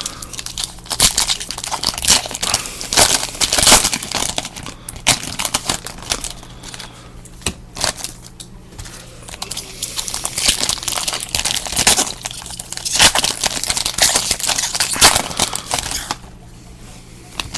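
Foil trading-card pack wrappers crinkling and tearing as packs are ripped open and handled, in irregular bursts that stop about a second before the end. A faint steady low hum runs underneath.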